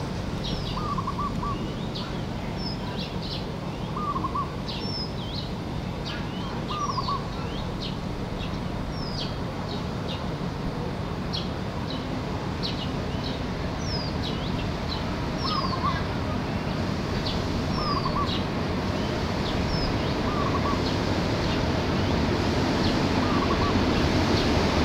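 Birds chirping throughout, one of them repeating a short warbling phrase every few seconds, over the low rumble of an approaching SRT DRC Sprinter diesel railcar that grows louder toward the end.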